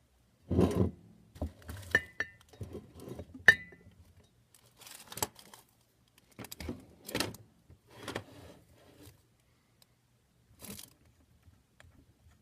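Small metal drill bits and a cordless drill being handled: irregular clicks, rattles and scrapes as a thin bit is fitted into the drill's chuck, with two short ringing metallic clinks in the first few seconds. The drill motor is not run.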